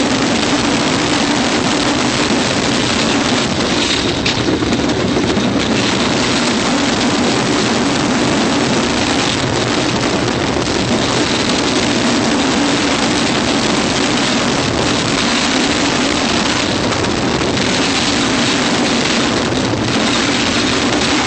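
Wind rushing over the microphone with the steady rumble of a Rocky Mountain Construction wooden roller coaster train running at speed along its wooden track.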